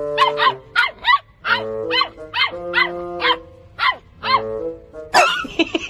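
A puppy yapping in short high-pitched barks, mostly in pairs, over background music. A loud noisy burst comes near the end.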